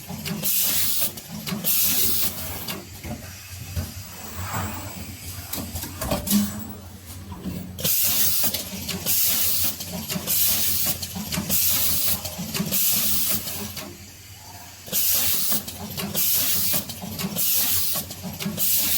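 Automatic PCB wire-inserting machine running: short hisses of compressed air from its pneumatic actuators in quick succession, over a steady rhythm of light mechanical clicks and clunks. The hissing stops for several seconds twice, then starts again.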